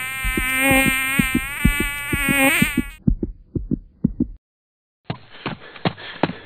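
A fly buzzing, its pitch wavering, over a regular low thump about twice a second. The buzz cuts off suddenly about three seconds in and the thumps stop a second later. After a short silence a run of sharp taps begins.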